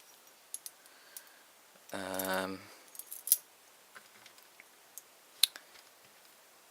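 Small metal clicks and taps of lock pins and springs being handled and dropped back into a brass Euro cylinder while re-pinning it, scattered and irregular with two sharper clicks in the second half. A short hummed vocal sound about two seconds in.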